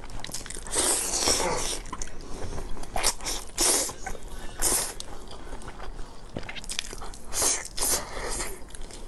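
Close-up eating sounds of a person biting into and chewing braised pork rib meat. Several loud bites come at uneven intervals, with quieter chewing between them.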